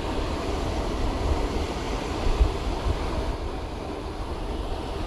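Wind buffeting the microphone: a steady low rushing noise, with one brief louder bump about two and a half seconds in.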